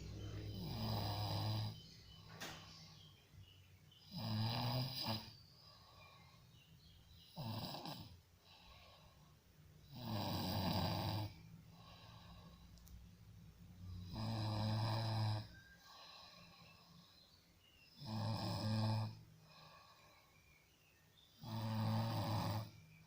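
A person snoring: seven snores, one about every three to four seconds, with fainter breathing between them.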